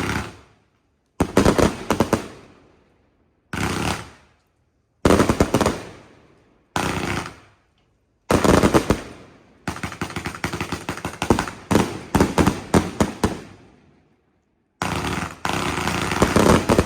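Fireworks going off: sharp bangs that ring away, and in the second half long runs of rapid popping reports. They come in short bursts that start abruptly and cut off to dead silence several times.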